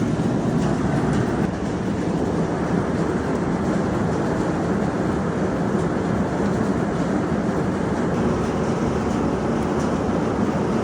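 Heavy rain falling steadily, a dense, even rush of noise with faint scattered drop ticks over it.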